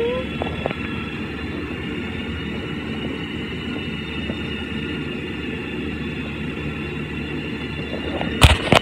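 Domestic cat purring steadily, held right against the phone's microphone. One sharp knock near the end.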